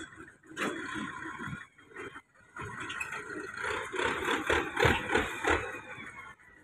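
Tractor engine running as its front dozer blade pushes soil and broken rubble, with uneven rattling and scraping.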